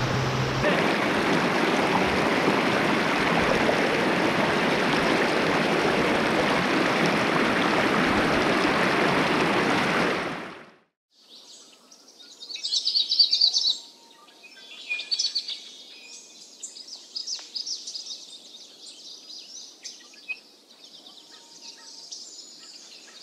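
Water of a shallow, rocky stream rushing steadily for about ten seconds, then cut off suddenly. It gives way to quieter birdsong: high chirps and trills, loudest a couple of seconds after the cut.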